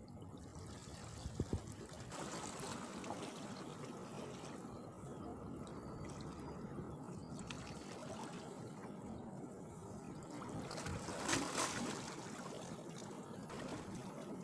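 Small waves lapping at the water's edge, a steady water noise with a few light knocks about a second and a half in and a brief louder rush about eleven seconds in.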